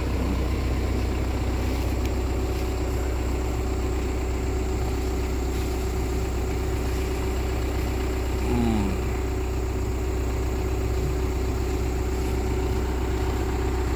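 Hitachi Zaxis 110 MF excavator's diesel engine idling steadily.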